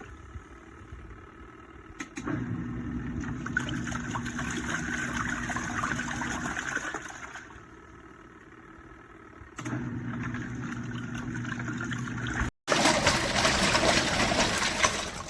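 Tap water rushing through a hose into a portable twin-tub washing machine's wash tub, with a steady low hum beneath it. It starts about two seconds in, eases off for a couple of seconds midway, starts again, and comes back louder near the end.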